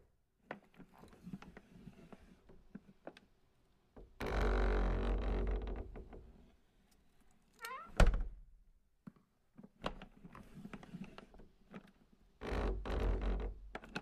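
Something vibrating against a wooden surface: a buzzing rattle of about two seconds starts about four seconds in, and another comes near the end. About eight seconds in there is one sharp knock with a short rising squeak just before it, and faint scattered ticks between.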